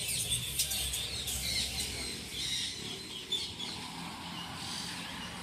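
Many birds chirping and squawking, short overlapping calls, thickest in the first three seconds and thinning out after.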